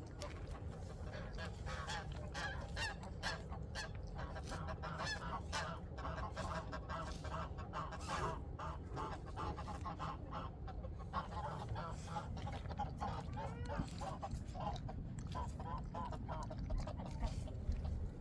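Geese honking over and over, many short calls overlapping, with a steady low rumble underneath.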